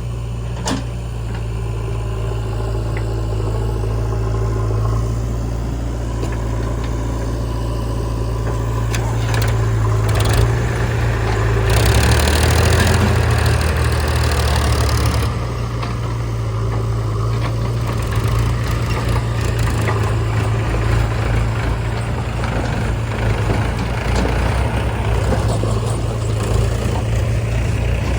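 Diesel engines of a backhoe loader and tractor running steadily, with a louder, harsher surge lasting about three seconds near the middle.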